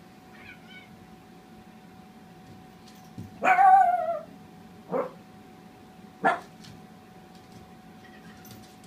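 Small dog barking in play with a cat: a faint yip near the start, one longer, loud bark that falls in pitch about three and a half seconds in, then two short barks about a second apart.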